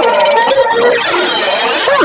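Music from a children's learning video, layered many times over with effects into a dense cacophony, its copies gliding up and down in pitch in repeating sweeps.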